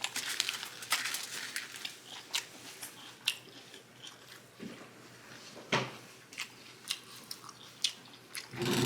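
Close-miked chewing and biting of food: irregular wet crunches, clicks and smacks of the mouth. A louder, lower sound with a pitch to it comes in near the end.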